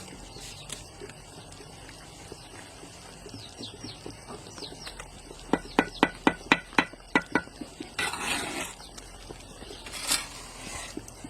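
A quick run of about ten sharp knocks, roughly four a second, followed by two short bursts of scraping noise.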